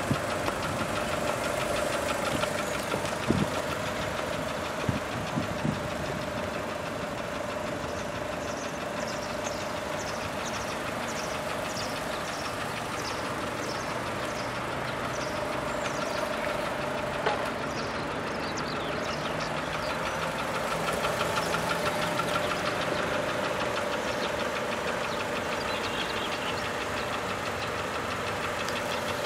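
A 2006 Mitsubishi Lancer IX's 2.0-litre 16-valve inline-four idling steadily.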